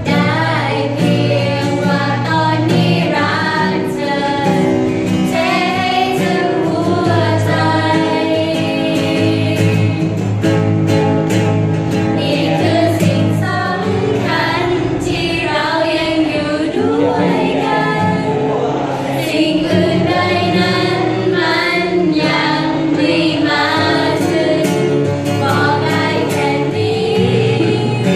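Several girls singing together to a strummed acoustic guitar.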